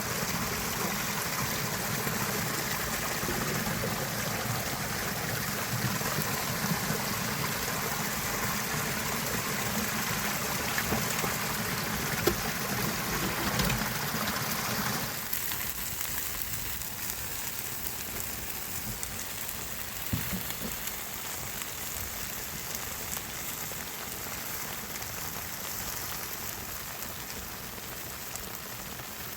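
Steady rushing-water noise. About halfway through it becomes quieter and thinner.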